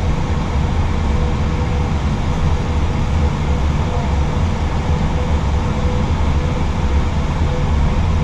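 Steady ambient noise inside an Airbus A320 cockpit: an even low rumble with a faint steady hum above it.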